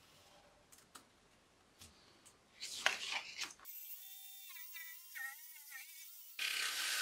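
A pen scratching across an MDF sheet in short loud strokes as a line is drawn, followed by wavering pitched tones, and then near the end a Bosch GST 90 BE jigsaw starts up with a loud steady noise.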